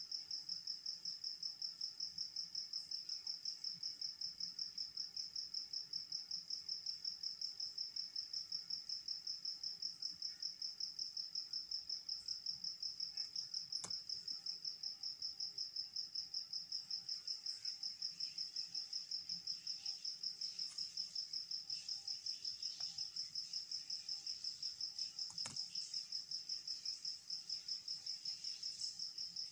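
Insect chirping: one steady high-pitched trill pulsing several times a second without a break, with two faint clicks in the middle.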